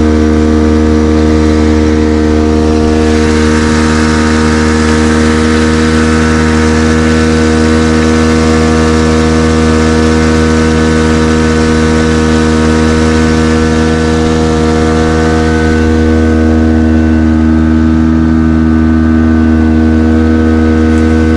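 Outboard motor pushing an inflatable boat along at a steady cruising speed, its pitch holding constant throughout.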